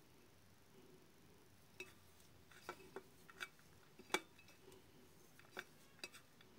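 Metal spoon clinking and scraping against an enamel plate while mashing fried tuna into a bait paste. The clinks are sharp and irregular, starting about two seconds in, and the loudest comes a little after four seconds.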